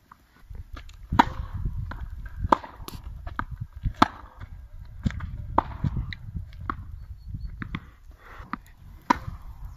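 Tennis rally on a hard court: a ball struck by rackets and bouncing, sharp pops spaced about a second or a second and a half apart, six or so in all, over a low rumble.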